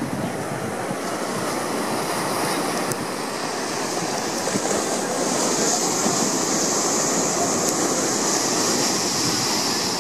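Surf breaking and washing up on a sandy beach, a steady rush that turns hissier from about halfway.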